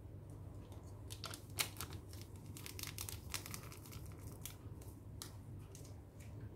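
Plastic seasoning container crinkling and clicking in the hand as powder is shaken out of it, a scattering of sharp crinkles over a few seconds, sharpest about a second and a half in, over a low steady hum.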